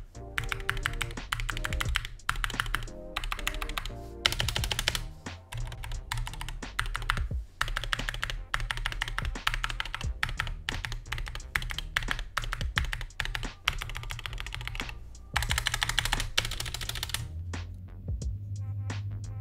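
Fast typing on a SteelSeries Apex Pro mechanical keyboard, a dense run of key clicks, with background music underneath. Near the end the typing thins to a few scattered key presses.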